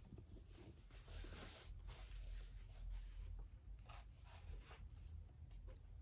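Soft rustling and swishing as a hardcover book is picked up and opened and its paper pages are turned, several brushes in a row, over a low room hum.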